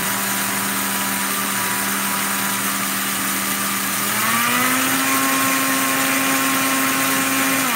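NutriBullet blender motor grinding dry bulgur wheat to a finer meal. It runs steadily, steps up to a higher speed about four seconds in, then is switched off and winds down near the end.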